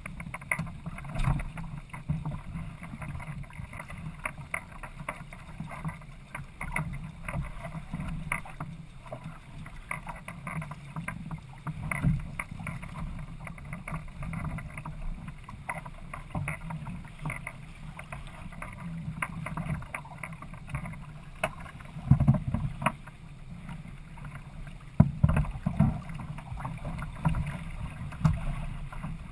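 Choppy water rushing and slapping irregularly against the hull of a Hobie Adventure kayak sailing at speed, with wind buffeting the microphone as a low rumble. A few heavier slaps come about two-thirds of the way through and again near the end.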